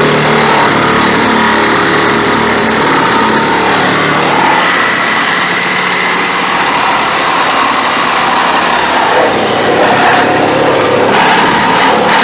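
A power cutting tool running loudly and steadily, cutting into a Jeep during its dismantling.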